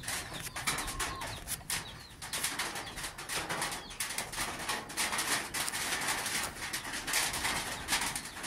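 Rain drumming on an iron sheet roof: a dense, uneven patter of drops.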